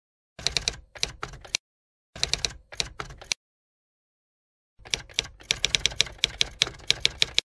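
Typewriter sound effect: quick mechanical key clacks in three runs, each with a short pause after it and the last run the longest, as on-screen text is typed out letter by letter.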